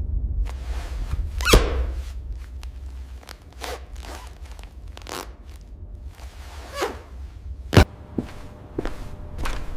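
Irregular knocks and clanks over a steady low rumble, the two loudest about one and a half seconds in and near the end.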